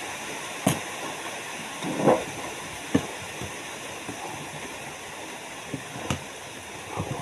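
Steady background hiss with a handful of short, sharp clicks and knocks scattered through it; the loudest is a brief rustling knock about two seconds in.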